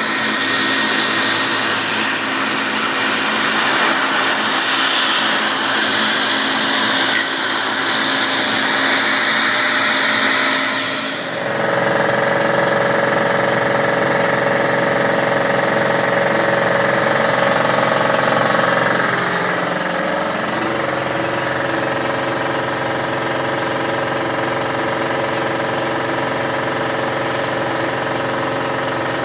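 Haas TM-1 CNC mill's spindle milling Delrin, a loud, even hiss. About 11 seconds in the cutting hiss cuts off suddenly, leaving the machine's steady whirring hum, with a brief falling tone a little past halfway.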